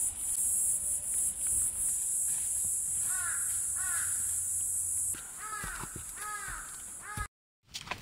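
Crow cawing: two faint caws about three seconds in, then four louder caws in quick succession near the end.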